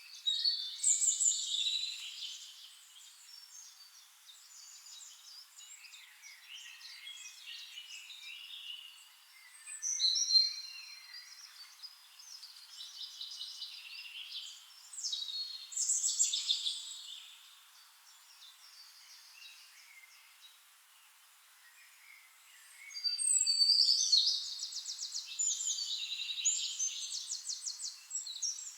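Forest songbirds singing in separate phrases of chirps and fast trills: loud bursts about a second in, around ten and sixteen seconds, and a longer, busier stretch of rapid trills near the end, with softer song in between.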